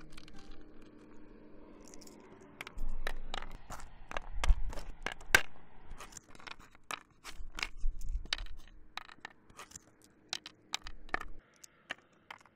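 Small stones clicking and clattering as they are dropped by hand into the pits of a mancala board, in an irregular run of sharp clicks starting about three seconds in, with a few heavier knocks.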